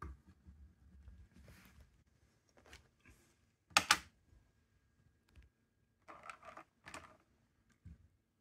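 A battery-powered plastic mosquito repellent unit and its refill cartridge being handled: a string of plastic clicks and rattles, the sharpest about four seconds in.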